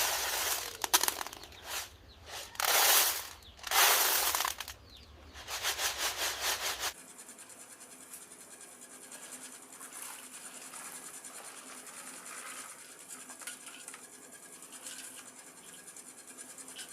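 Rough rubbing and scraping noises in bursts of about a second. An abrupt cut about seven seconds in leaves fainter, intermittent scratching.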